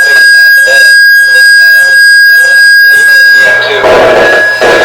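A loud, steady, high electronic tone, alarm- or test-tone-like, with a faint regular pulsing beneath it. After about three and a half seconds a denser, noisier mix of sound joins it, and the tone cuts off just after the end.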